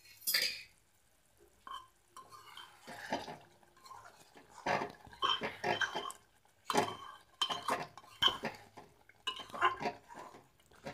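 Steel spoon stirring thick pea-and-masala gravy in an aluminium cooking pot: irregular scrapes and clinks of metal on metal against the pot, becoming busier from about two seconds in.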